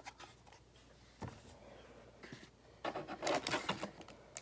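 Hands handling toy packaging: a click, a light knock about a second in, then about a second of rustling and crinkling about three seconds in.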